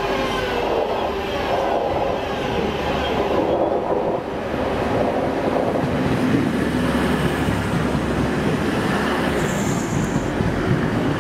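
A train running past close by, with a steady noise of wheels on rails. A pitched whine falls in the first couple of seconds, and a brief high squeal comes near the end.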